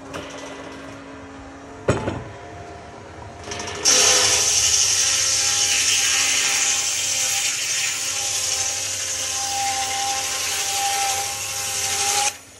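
Sawmill bandsaw cutting a golden teak log. A knock comes about two seconds in. From about four seconds the blade is in the wood with a loud steady hiss and a faint whine, and it stops abruptly near the end as the cut runs out.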